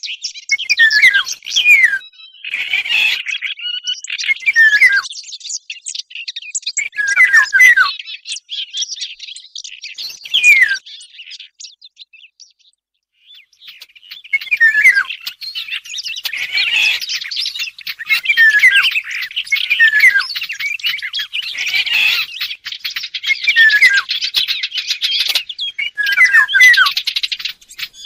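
A recorded bird-call lure mixing the calls of the Eurasian golden oriole with the chattering song of the fig bird, a small warbler. Short falling call phrases repeat every second or two over dense chatter, with a brief pause a little before the middle.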